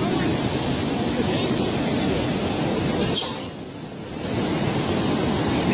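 Storm surf and wind rushing over the microphone as one steady noise. It drops away briefly a little past halfway, then returns.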